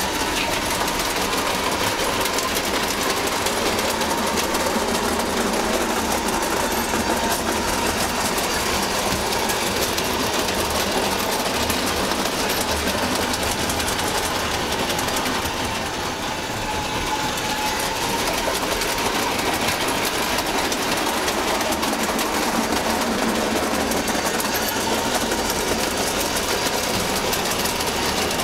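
O gauge electric model train running on the layout's track: a steady motor whirr mixed with the clatter of its wheels over the rails, at an even level.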